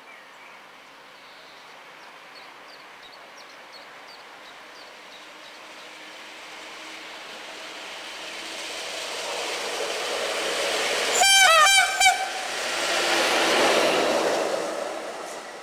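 Electric locomotive EP07P running light, approaching and passing at speed: rail and running noise swells steadily to a peak, then fades. Its horn gives a short double blast about eleven seconds in, just before it passes.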